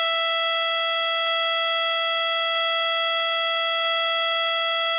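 A steady, high-pitched electronic tone with overtones over the cockpit headset audio, holding one pitch without change.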